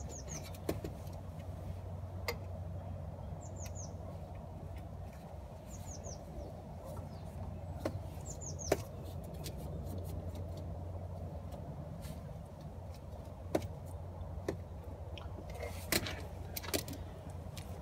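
Scattered metal clicks and taps from a hand tool working a Jubilee hose clip loose on a coolant hose, over a steady low hum. A small bird gives short chirps four times in the first half.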